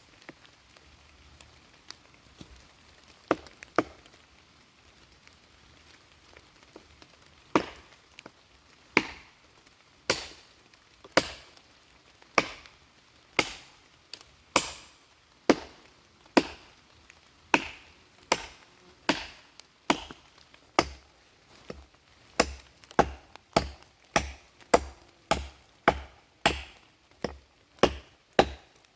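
Axe chopping firewood: two strikes a few seconds in, then steady blows about one a second, quickening to about two a second in the last part.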